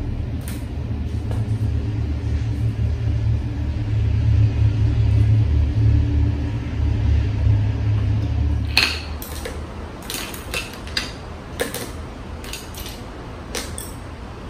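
A steady low rumble that cuts off suddenly about nine seconds in. It is followed by scattered light clinks of chopsticks and a metal ladle against bowls and the hot pot.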